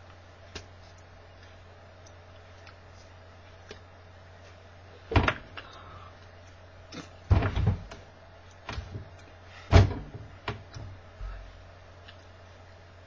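Hands clapping and slapping against each other and the body while signing: a few sharp claps and thumps, the loudest a cluster about halfway through and a single hard one about ten seconds in. A steady low hum runs underneath.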